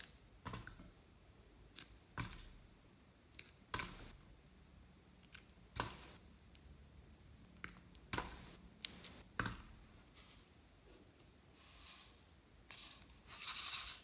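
Small plastic macaron toys dropped one at a time into a glass bowl of slime strewn with little metal bells and toys, each landing with a sharp clack and a brief ring; about seven drops, then a softer scraping near the end.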